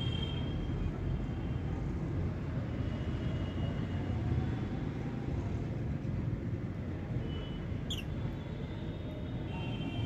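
A steady, fluctuating low rumble, with a few faint high bird chirps and one sharp falling chirp about eight seconds in.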